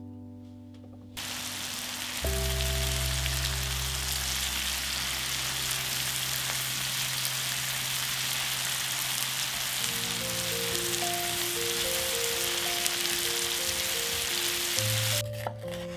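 Sliced onions frying in a pan: a steady sizzle that starts about a second in and cuts off shortly before the end, over background music.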